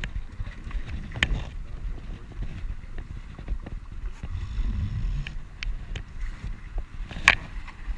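Wind rumbling on a camera microphone in a drift boat, with scattered small knocks and two sharper ones, about a second in and a louder one near the end.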